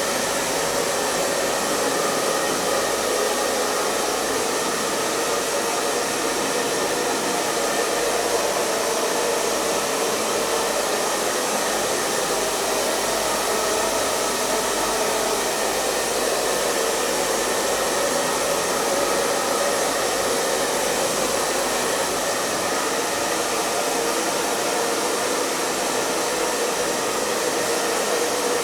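Hair dryer running continuously, a steady rushing blow of air over the motor's hum, unchanging throughout.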